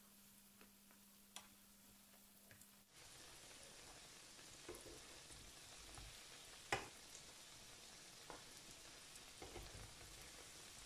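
Krebli dough pastries frying in hot oil in a pan: a faint, even sizzle that starts suddenly about three seconds in, after a faint low hum. Light clicks of tongs turning the pastries come through it, one sharper about two-thirds of the way through.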